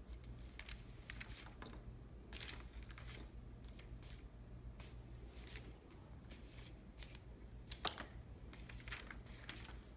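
A paintbrush and small hands rubbing and dabbing on a sheet of paper: short, irregular scratchy rustles, with one sharper tap about eight seconds in.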